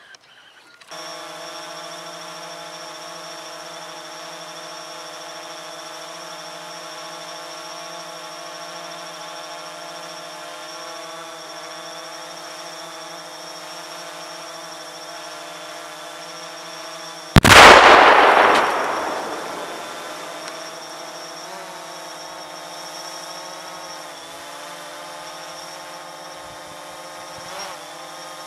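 Drone motors whining steadily in several even tones. About seventeen seconds in, two pounds of Tannerite detonate: one loud blast that dies away over about two seconds.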